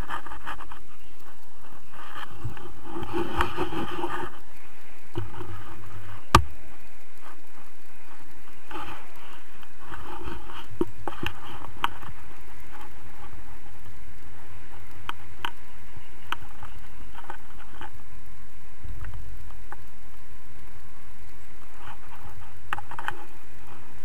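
Scraping and scratching from the pole-mounted camera being handled in flight, with many small scattered clicks and one sharp knock about six seconds in, over a low rumble of airflow on the microphone.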